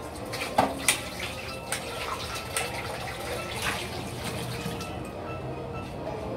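Tap water running as a frying pan is rinsed in a sink, with several sharp knocks of the pan against the sink.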